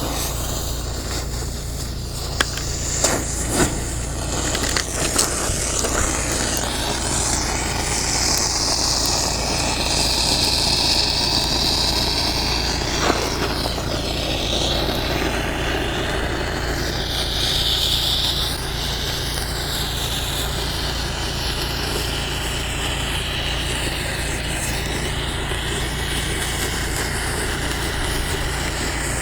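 A felt puppet burning: a steady rushing of flames with a low rumble of wind on the microphone, a few sharp crackles in the first few seconds and one near the middle, and hissing swells now and then.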